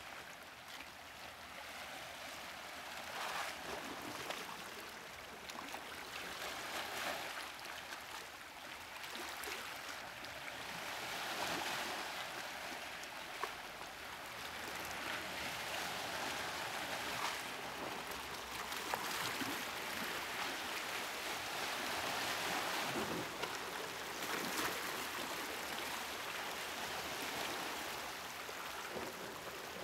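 Sea waves washing against the shore: a steady hiss of surf that swells and eases every few seconds.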